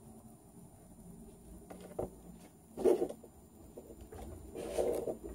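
Small plastic toy pieces being handled and pressed onto a toy figure: a few light clicks and rubs, with one louder knock just before three seconds in.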